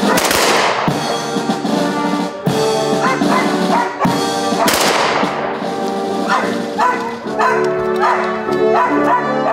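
Honor guard firing ceremonial volleys from Kalashnikov-type rifles: three sharp cracks about two seconds apart, each with a short echoing tail, over music.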